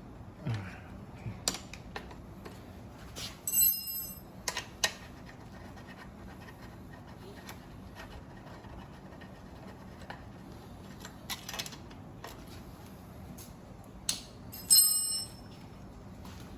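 Hand tools and metal headset parts on a folding bike being handled during disassembly: scattered clicks and knocks, with two short bright metallic rings, one about three and a half seconds in and a louder one near the end.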